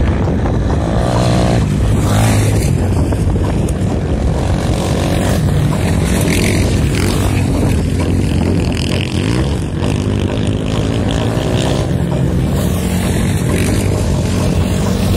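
Motocross dirt bike engines running and revving as the bikes ride past on the track, their pitch rising and falling with the throttle.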